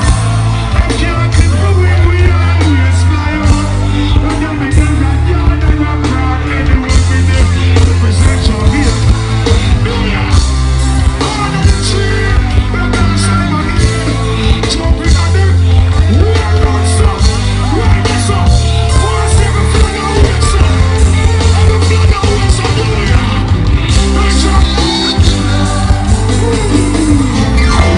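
Loud live music through a concert sound system, a heavy bass line pulsing in a steady rhythm, with a voice singing and shouting over it.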